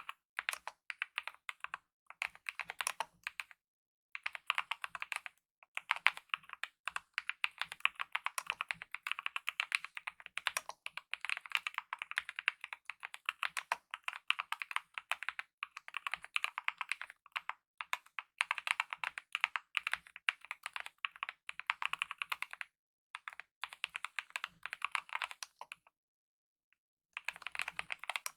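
Continuous fast typing on a Kemove mechanical keyboard with lubed optical red (linear) switches and DSA-profile keycaps: a dense run of light keystroke clacks, broken by a few short pauses and a longer pause near the end.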